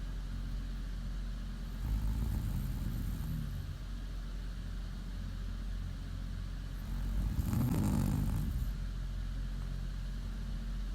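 A woman snoring in her sleep: two rough, low snores about five seconds apart, the second, about seven seconds in, the louder, over a steady low hum.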